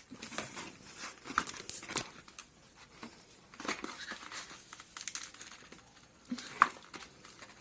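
Plastic packaging crinkling and tearing as cutlery is unwrapped, with irregular crackles and a few sharp clicks, one standing out near the end.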